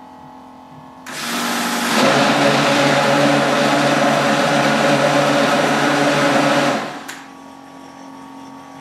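Countertop blender running with water in its jug: switched on about a second in, turned up to a higher speed a second later, whirring loudly and steadily for about five seconds, then switched off and spinning down, with a click just after.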